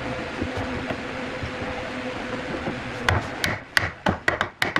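Wooden mallet knocking a tenon home into the mortise of a solid-wood log frame: a quick run of sharp wooden knocks starting about three seconds in, over a steady hiss.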